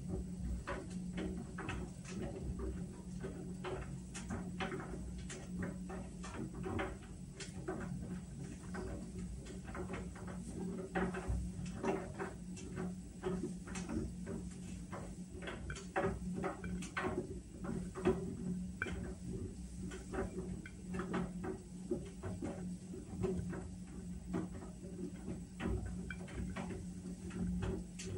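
Whirlpool washing machine running its Steam Refresh cycle: a steady low hum with irregular light clicks and taps, a few a second.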